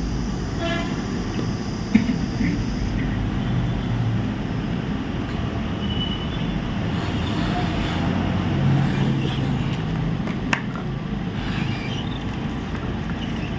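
Steady rush of a hot-air rework station blowing on a laptop motherboard, heating a shorted high-side MOSFET to desolder it.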